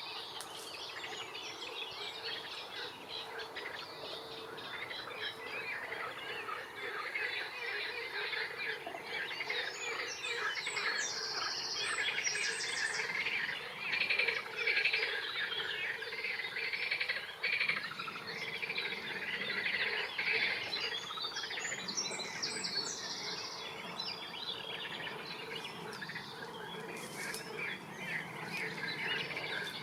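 A chorus of birds chirping and singing, several at once. Brief higher trilling calls come in about a third of the way through and again about three-quarters through.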